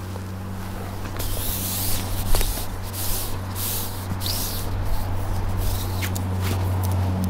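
A steady low engine hum, with a run of short, irregular hissing, splashy rustles from about a second in until near the end.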